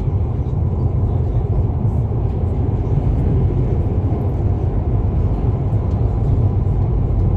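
Steady low rumble of a Hyundai Rotem HRCS2 electric multiple unit running along the track, heard from on board.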